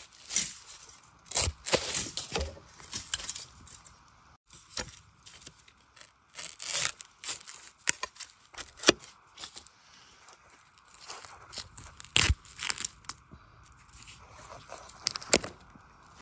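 Dry, burnt bamboo litter and ash crackling and rustling, with irregular sharp snaps and clicks as someone moves about inside a bamboo clump. A few louder cracks come about two-thirds of the way through and near the end.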